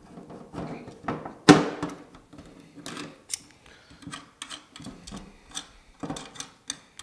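Irregular metallic clicks and taps as steel slip-joint pliers are worked on a bolt head and bolts are handled on a steel square tube, with one sharper click about a second and a half in.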